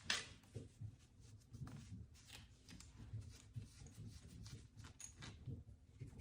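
Faint clicks and taps of a recessed LED light fixture being handled, with one sharp click at the very start.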